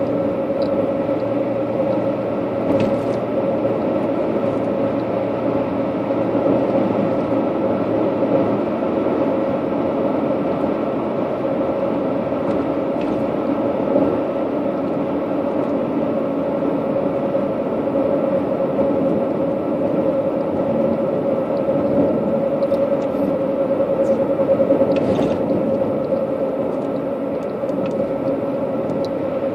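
Steady road noise of a vehicle driving on pavement, heard inside the cabin: tyre and engine drone with a constant hum, and a couple of faint clicks about three seconds in and near the end.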